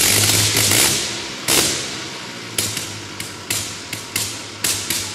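A Gnome rotary engine over a hundred years old is spinning up during a start, firing in separate, irregular bangs rather than running steadily. It sounds like a noisy rush at first, then a loud bang, then single bangs about every half second.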